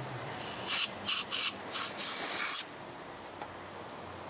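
Aerosol brake cleaner sprayed in five quick hissing bursts, the last one the longest, into a rear brake caliper bracket's slide-pin bore to rinse out old grease and grime.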